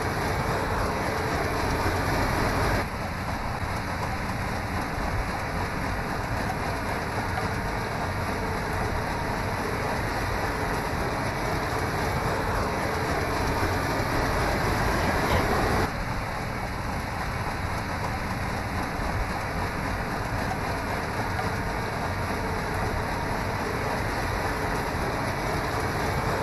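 John Deere CH570 sugarcane harvester running: a dense, steady machine noise without a clear engine pitch, which changes abruptly about 3 seconds in and again about 16 seconds in.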